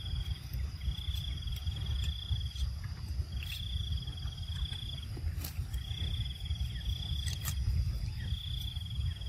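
An insect trilling in repeated runs of about two seconds with short gaps between them, over a steady low rumble. A few sharp clicks sound in between.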